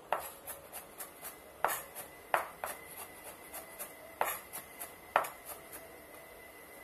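Kitchen knife mincing garlic on a wooden cutting board: irregular knocks of the blade against the board, a few a second, some much harder than others, thinning out near the end.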